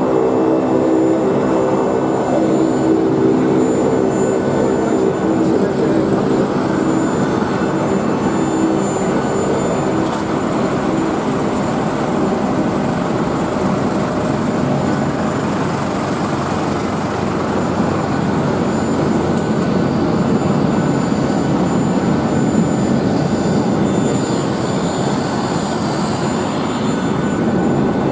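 Aircraft engines running on an airport apron: a turboprop's steady droning tones fade away over the first several seconds, leaving an even rush of jet engine noise with a thin high whine.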